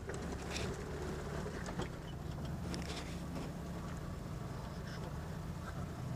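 Military jeep's engine running steadily at low speed on a rough off-road track, with short knocks and rattles from the vehicle jolting over the ruts.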